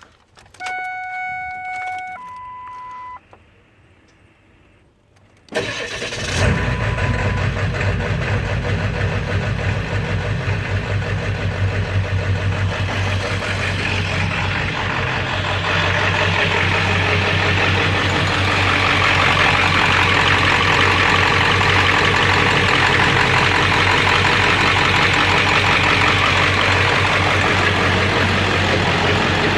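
Two electronic beeps, the second lower, then a Ford 7.3 V8 diesel engine starts about five seconds in and idles, getting a little louder about halfway through. The engine is being checked for a knock and a rough idle.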